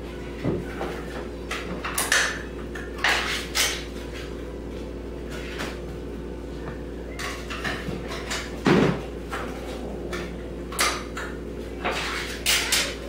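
Dishes, containers and a utensil clattering and clinking as cat food is dished out at a table: irregular clacks, with a loud knock about nine seconds in. A steady low hum runs underneath.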